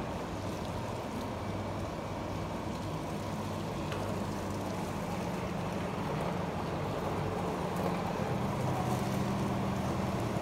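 Steady low hum and rumble of running brewhouse machinery, with a low drone that rises in pitch about halfway through.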